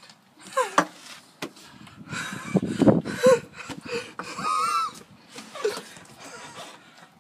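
Short bursts of breathy, wheezy laughter and wordless vocal noises close to the microphone, with fabric brushing against it.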